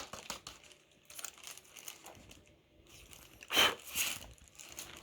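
Packaging being handled and unwrapped, with intermittent crinkling and rustling and two sharper crinkles about three and a half and four seconds in.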